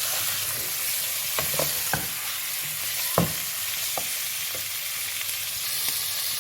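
Chicken pieces and chopped onion sizzling in hot oil while being stirred, with a few knocks and scrapes of the stirring utensil against the pan; the loudest knock comes about three seconds in.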